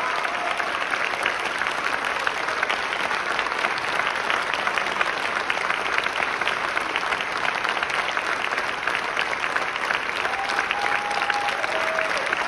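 A large audience clapping steadily in a big hall: a long standing ovation, dense and even throughout.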